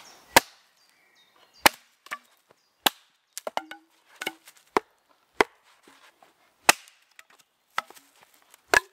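Wood being chopped: about eight sharp chopping strikes, roughly one a second, with lighter knocks and clatters of wood between them.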